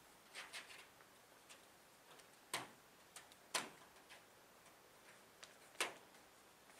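Near silence broken by a few light, sharp clicks and taps, three of them louder than the rest, at uneven intervals.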